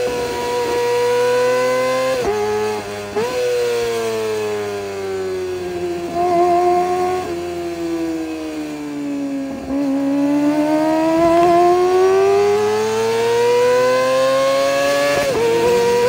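Kawasaki ZX25R's 250 cc inline-four running through an Orion aftermarket exhaust while being ridden at high revs. There are quick gear changes about two and three seconds in, then the revs fall steadily for several seconds and climb again, with an upshift near the end.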